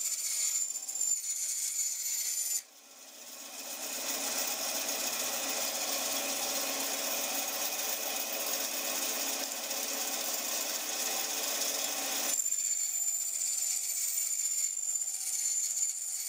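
SIP 10-inch bandsaw running with a steady high whine, its blade cutting through wooden skirting board; the sawing noise fills in from about four seconds in and stops about twelve seconds in, leaving the saw running free.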